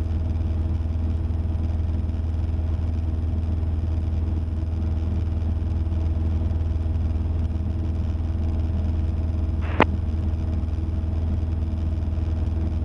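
Cessna 172's engine and propeller droning steadily in cruise flight, with a single short click about ten seconds in.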